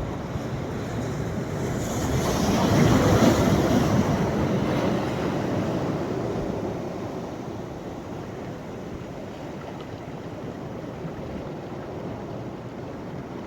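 Sea waves breaking on a sandy beach: a wave swells and breaks about two seconds in, loudest around three seconds, then its wash fades to a lower steady surf.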